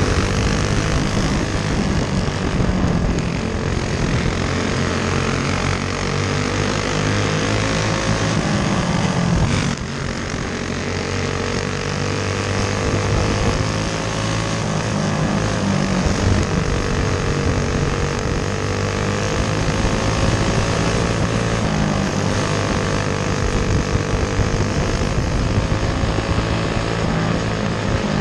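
Racing go-kart engine heard on board at race pace, its pitch climbing for several seconds at a time and then dropping as the throttle comes off for the turns, with a sharp drop about ten seconds in.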